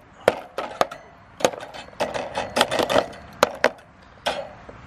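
A thin skin of ice on a frozen plastic livestock water trough being broken up with a hand tool: a run of sharp, irregular cracks and knocks, about a dozen in a few seconds.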